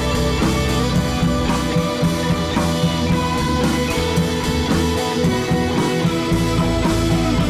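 Background rock music with guitar and drums, a steady beat.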